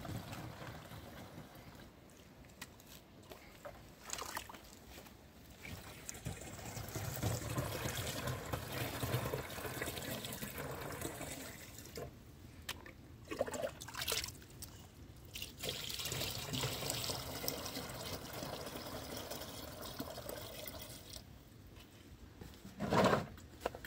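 Water trickling and pouring, coming and going in uneven spells, with scattered knocks and a short louder sound just before the end.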